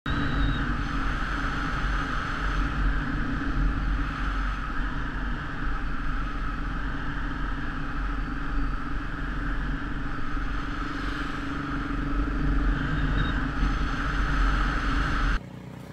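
KTM 690 Enduro R's single-cylinder engine running steadily while the bike is ridden along a road, with wind rushing over the on-board microphone. The sound cuts off abruptly near the end.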